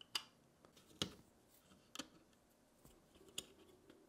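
Faint, sharp clicks and taps of hard 3D-printed plastic, about one a second, as a small throw ring is handled and pressed onto a toy boat's cabin roof.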